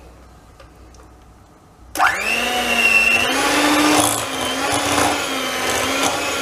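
Electric hand mixer switched on about two seconds in, its motor whining up to speed and then running steadily, beaters churning butter and cream cheese in a glass bowl; the pitch wavers a little as the load shifts.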